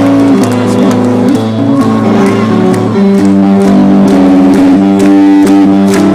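Live rock band playing a song's instrumental intro, with guitars to the fore and regular drum or cymbal hits from about halfway through.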